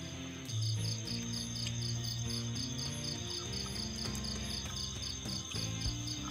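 Night insects, cricket-like, chirping in a steady rhythm of about four short chirps a second. Under them runs soft music with low held notes.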